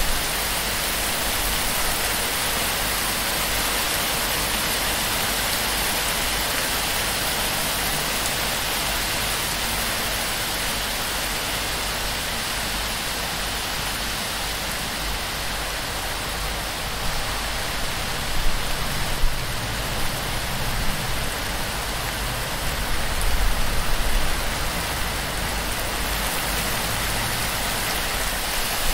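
Heavy torrential rain falling steadily on a palm-thatch roof, water pouring off the fronds in a dense, even hiss. A few brief louder low swells come in the second half.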